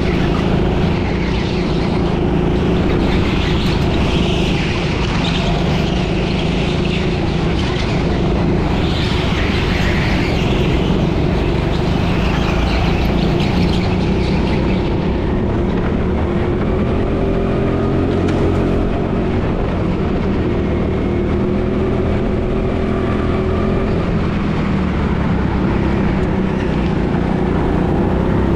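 Go-kart engine running at speed, heard close up from the kart itself, its pitch rising and falling with the throttle through the corners.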